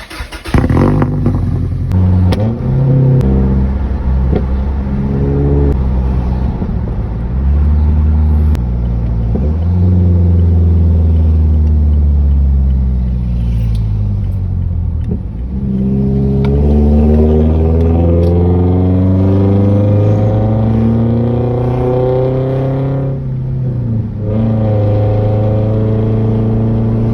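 2021 Toyota Tacoma's engine heard through a Carven aftermarket exhaust, coming in loudly about half a second in. It is revved up and down, its pitch rising and falling in steps and long glides, with a few sharp pops.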